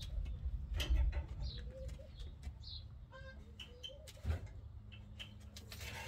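Short bird chirps and calls with some clucking, and a single dull thump about four seconds in.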